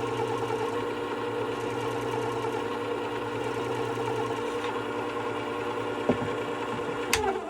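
Work Sharp WS3000 sharpener's motor running steadily, spinning its abrasive-covered glass platen with an even hum. Just after seven seconds in there is a sharp click, and the motor winds down with falling pitch.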